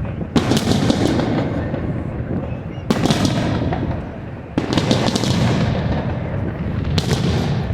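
Aerial fireworks display: four loud bursts about two seconds apart, each trailing off in echoing rumble and crackle.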